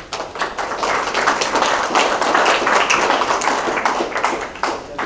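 Audience clapping, building up just after the start, holding steady for a few seconds and dying away near the end.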